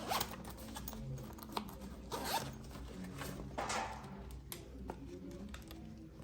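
A few short rasping zips and scrapes, about four strokes, with light clicks between them.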